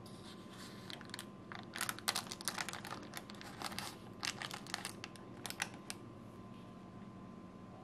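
Baking paper crinkling and crackling in a quick run of sharp rustles as it is handled and pulled from under a cake, over a faint steady hum.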